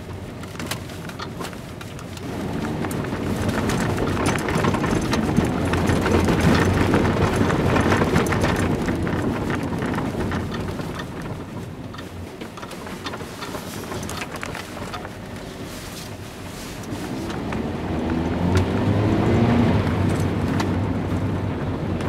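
2003 Mitsubishi Colt's engine and road noise heard from inside the cabin while driving. The engine note rises twice as the car gathers speed, about two seconds in and again near the end, with steady tyre and road noise between.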